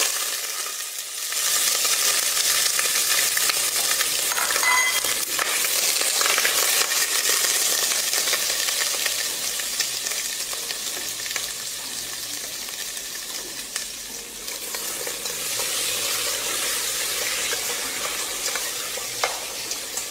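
Chopped chicken dropped into oil and sugar browned to a caramel in a steel pot, sizzling hard: the sizzle starts abruptly as the meat goes in and eases a little over the following seconds as the meat sears and takes on colour.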